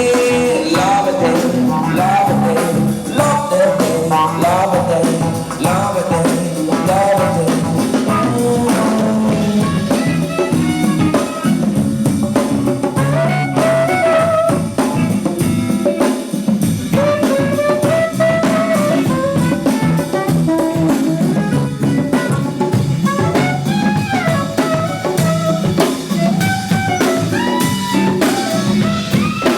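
A live band plays during a sound check, with a drum kit keeping a steady groove under melodic lines.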